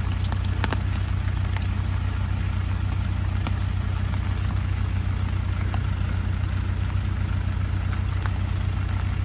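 Toyota Hilux pickup's engine idling steadily, with a few scattered light clicks over it.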